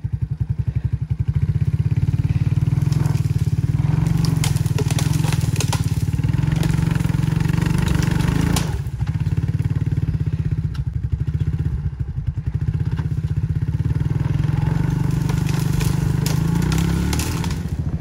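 ATV engine running under load, with short dips in revs about halfway through and again about two-thirds in, as the four-wheeler pulls a felled lodgepole pine log out on a chain.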